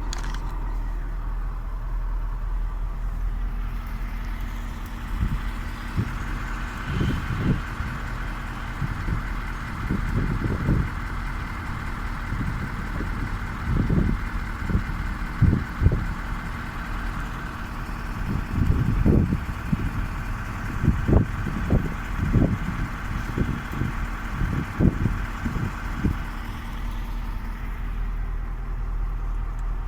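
A vehicle engine runs steadily. A steady higher whine joins it from about six seconds in and fades a few seconds before the end, with many irregular low thumps in between.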